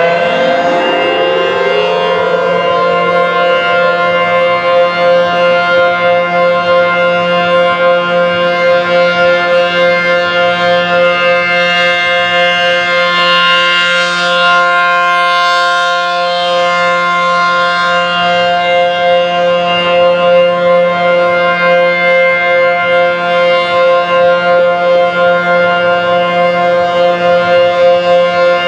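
ACA P-15 outdoor warning siren sounding a test. It finishes winding up to full pitch in the first couple of seconds, then holds a steady chord of several notes that swells and fades in loudness about twice a second.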